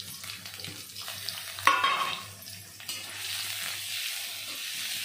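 Sliced onions frying in hot oil in a steel kadai as they are stirred: a sharp metallic clang about two seconds in, then a steady sizzle that grows louder from about three seconds in.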